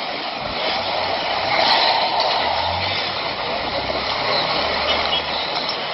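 A motor vehicle engine running steadily: a low hum under a broad, even hiss of outdoor noise.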